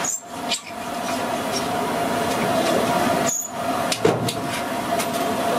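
Hot oil sizzling and bubbling as a batch of french fries deep-fries in a large iron wok, with a sharp metal knock about four seconds in as a metal spatula goes into the pan.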